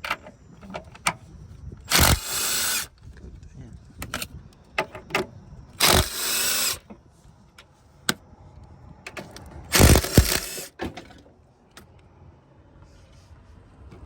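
Three short bursts from a pneumatic impact wrench, each just under a second and a few seconds apart, loosening suspension bolts. Scattered clinks and knocks of tools and metal parts come between them.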